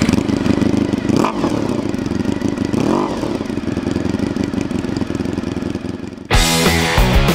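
Honda RVF400's V4 four-stroke engine running through an aftermarket slip-on exhaust, idling with two short revs, about a second and about three seconds in. Rock music cuts in near the end.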